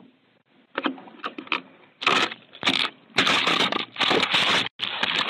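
Scraping and rustling right against a doorbell security camera's microphone as a hand handles and covers the camera. A few faint clicks come first, then loud, irregular scraping in bursts from about two seconds in.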